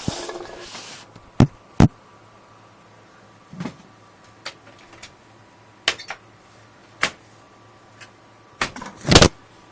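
Front panel of a computer case being fitted back on: a short scraping rustle at the start, then a series of sharp clicks and knocks as it is pressed into place, the loudest near the end.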